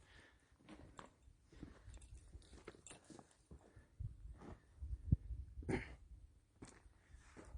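Faint, irregular scuffs and clicks, with low wind rumble on the microphone that comes and goes; the sharpest click falls a little over halfway through.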